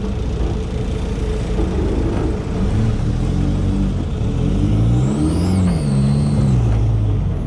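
4x4 off-road vehicle engine running in low range, its revs rising and falling several times. A short high whine rises and falls about five seconds in.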